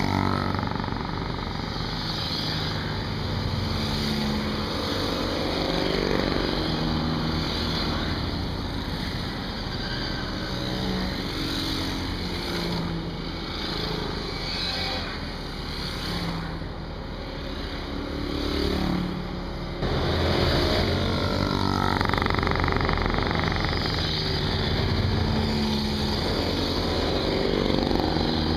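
Small-engined mopeds, autocycles and motorcycles passing one by one, each engine's pitch rising and falling as it goes by. About twenty seconds in, the sound changes suddenly to a louder, steadier running of small engines close by.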